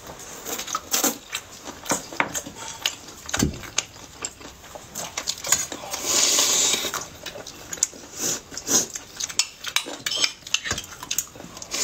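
Close-up eating sounds: spoons and chopsticks clicking and scraping against ceramic and metal bowls, mixed with chewing and slurping. A longer, noisier stretch comes about six seconds in.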